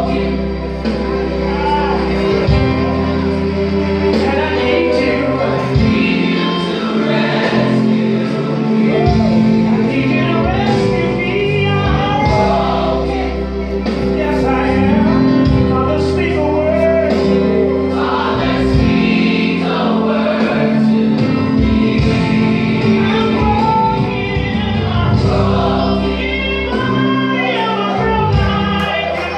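Gospel music with several voices singing over a strong bass.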